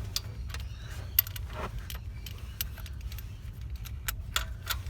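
Irregular metallic clicks and clinks: a spark plug socket on an extension bar knocking against the parts of a V6 Commodore engine as a new spark plug is guided toward its hole. A low steady rumble lies underneath.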